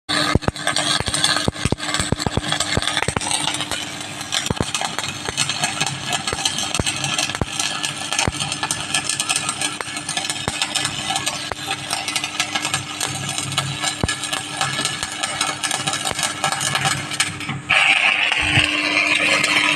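Stick-welding arc crackling and spitting, with many sharp pops, over a steady hum from the welding machine. Near the end the arc turns into a louder, higher hiss.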